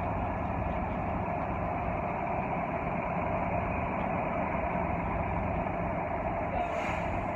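Steady rumble of street traffic and vehicle engines, with a brief hiss near the end.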